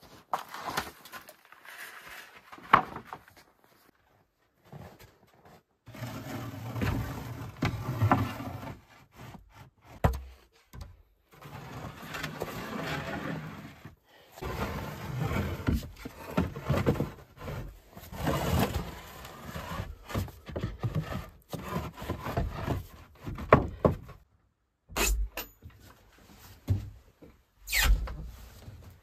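Sawn wooden planks being handled and stacked: irregular knocks and scrapes of boards against each other and against the log wall, with footsteps, and a few sharp knocks near the end.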